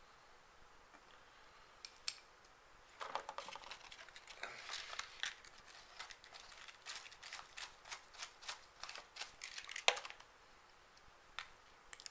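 Small hand tools and helicopter head hardware handled at the workbench: a quick run of sharp metallic clicks and clinks, with one louder snap near the end.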